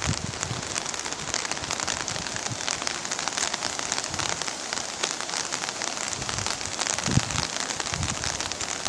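Heavy rain falling on hard surfaces: a dense, steady hiss of many fine drop clicks, with a few low thuds about midway and near the end.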